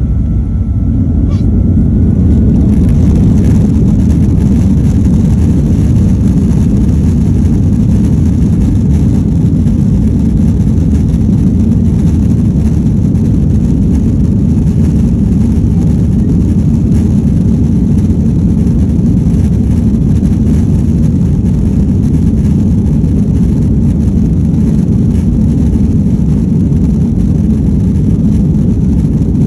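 Boeing 737-900's CFM56-7B turbofans at takeoff thrust, heard inside the cabin during the takeoff roll: a loud, steady low rumble with the noise of the wheels on the runway. It swells to full level in the first few seconds and then holds.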